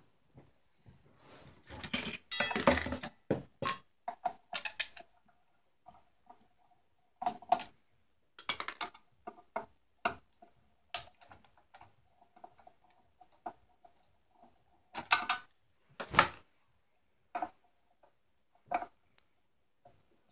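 Plastic and metal parts of a disassembled Pelco dome camera being handled and shifted by hand: irregular clicks, knocks and rattles, busiest in the first five seconds and then scattered, with a faint steady hum between them.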